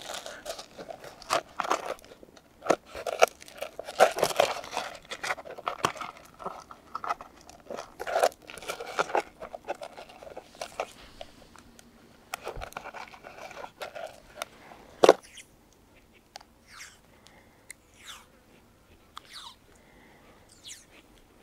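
Close, irregular crunching and rustling handling noises for about fifteen seconds, ending in one sharp click, then only a few faint scattered ticks.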